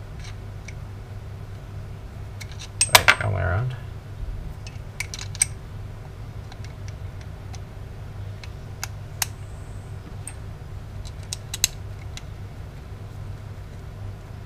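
Metal parts of a wiper motor clicking and clinking as the motor can and gearbox housing are handled and fitted back together, with a cluster of louder knocks about three seconds in. A steady low hum runs underneath.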